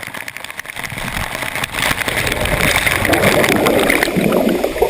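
Waterfall: rushing, splashing water, louder from about two seconds in.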